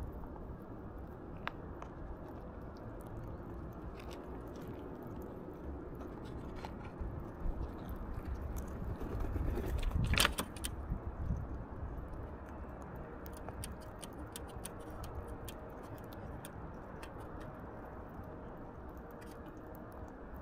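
Alexandrine parakeet cracking and nibbling seeds: scattered small clicks over a steady low background rumble. About ten seconds in, a louder rushing noise swells and then cuts off sharply.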